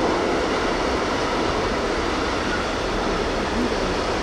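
Intermodal freight train of pocket wagons carrying lorry trailers rolling past, a steady noise of wheels on rails.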